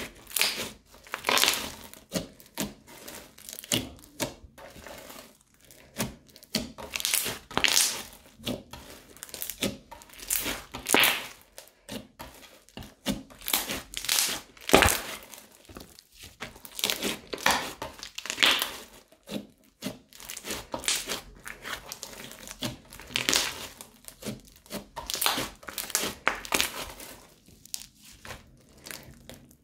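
Hands kneading, squeezing and stretching a thick crunchy slime packed with small beads: irregular crackling, crunching and squishing in short bursts with each squeeze and pull.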